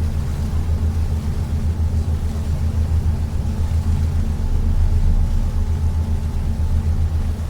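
Cruise boat's engine droning steadily, a deep even hum heard on board.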